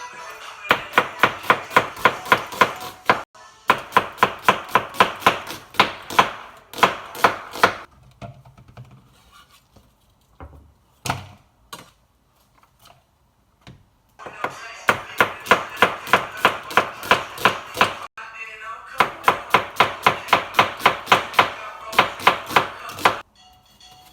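Kitchen knife chopping on a cutting board in quick even runs of about five strokes a second, broken by a few pauses and scattered single knocks.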